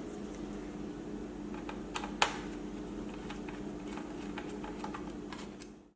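Scattered light clicks and taps from hands working on an HP EliteBook 8770w laptop, with one sharper click about two seconds in, over a steady hum.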